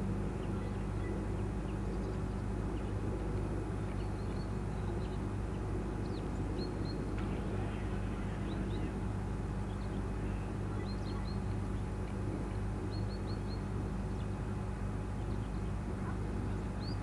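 Steady low machine hum, with small birds chirping over it in short runs of two or three high notes every second or so.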